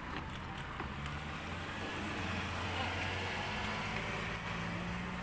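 A motor vehicle's engine running with a steady low hum over a haze of road noise.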